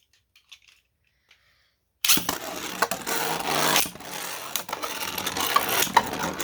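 A few small clicks, then about two seconds in two 3D-printed Beyblades are launched into a plastic stadium and spin against each other, scraping and rattling with frequent sharp clashes.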